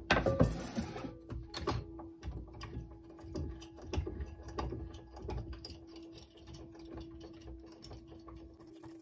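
Hand-cranked metal meat grinder being fed chunks of boiled pork heart and turned, its mechanism clicking and scraping over and over. A knock of a wooden cutting board set down at the start, and a faint steady hum underneath.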